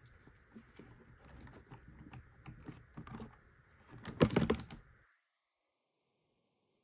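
Light plastic clicks and knocks as a Logitech G513 keyboard is handled during reassembly, with a louder clatter of knocks about four seconds in; the sound then cuts out abruptly to dead silence.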